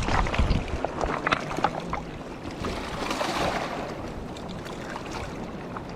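Wind buffeting the microphone, easing off about half a second in, then a steady outdoor rushing hiss with scattered light clicks and rattles.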